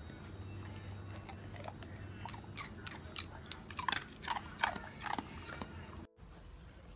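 Blue heeler cross dog licking and nibbling with its mouth at its paws, a quick irregular run of wet clicks and smacks starting about two seconds in and stopping about a second before the end.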